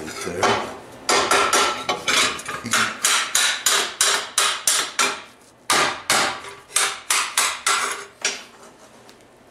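Claw hammer striking a sheet-metal hand on a steel welding table: quick ringing metal-on-metal blows, about three a second, with a short break just past halfway.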